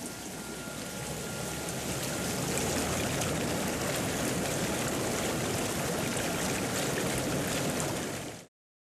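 Hot tub jets running, the water churning steadily. It swells up over the first couple of seconds, holds, then fades out and stops near the end.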